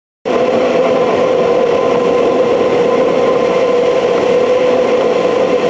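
Steady road and engine noise of a car cruising at highway speed, heard from inside the car, with a constant hum running through it. It cuts in abruptly just after the start.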